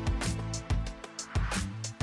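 Instrumental background music: held notes over a steady percussive beat.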